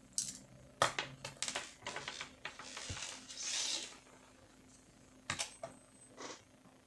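Clicks and light metal clatter of a small screwdriver taking the last screws out of a laptop graphics card's heatsink, then the card and its copper heat-pipe heatsink being handled and set down on a desk.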